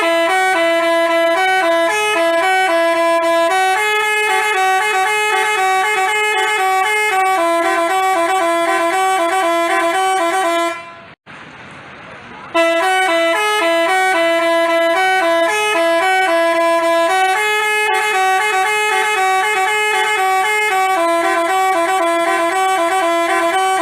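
Telolet Basuri multi-tone bus horn playing a melody as a string of held notes. The tune stops for about two seconds near the middle, then starts again from the beginning.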